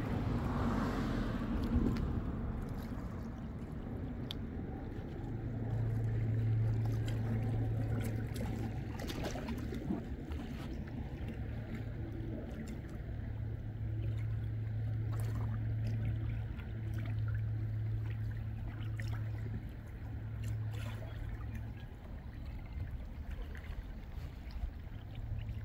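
A low, steady engine hum that swells and fades several times, over faint water lapping and small clicks at the shore.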